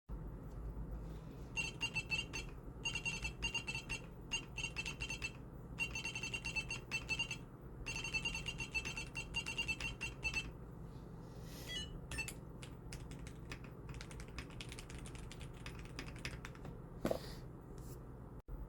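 Typing on a custom acrylic stacked mechanical keyboard, gasket-mounted, with Gateron G Silver Pro 2.0 linear switches. The keystrokes come in fast runs with short pauses and a high ringing note under them. In the second half they turn sparser and lighter.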